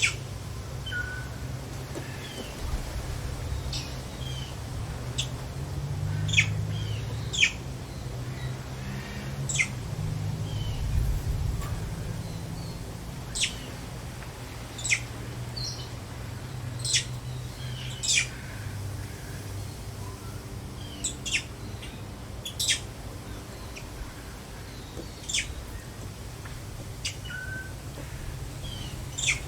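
Small birds chirping: short, sharp, high chirps every second or two over a steady low background rumble.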